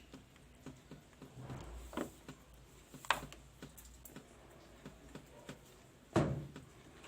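Scattered light clicks and taps from a washing machine's water inlet hose coupling being unscrewed and handled, with a sharper knock about three seconds in and a louder one near the end.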